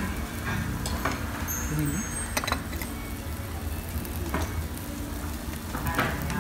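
Steak sizzling on a hot stone plate, with several sharp clinks of dishes and cutlery over a steady low rumble.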